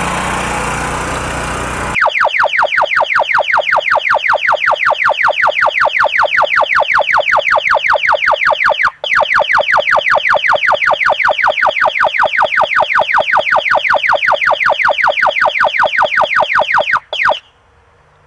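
Hyperspike HS-24 long-range acoustic hailing device sounding its bird-deterrent signal: a loud electronic tone pulsing rapidly, about five sweeping pulses a second. It starts about two seconds in, after a steady rushing noise, breaks off briefly about nine seconds in, then resumes and stops about a second before the end.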